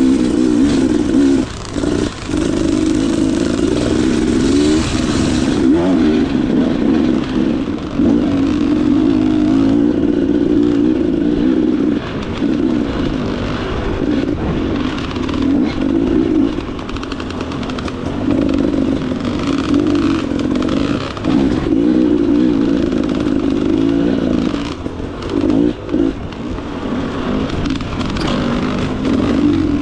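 Dirt bike engine running hard, its pitch rising and falling as the throttle is worked, with brief drops in level as it is let off, about two seconds in and again around twenty-five seconds.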